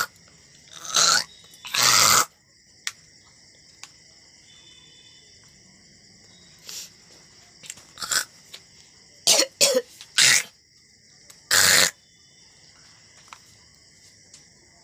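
A person coughing in about eight separate sharp coughs, some spaced a few seconds apart and a couple in quick succession, over a steady faint high-pitched insect trill.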